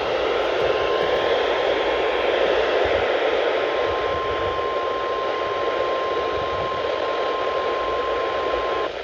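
NOAA Weather Radio 1050 Hz warning alarm tone: one steady beep held under heavy radio static, cutting off just before the end. The tone signals that a warning broadcast, here a severe thunderstorm warning, is about to follow.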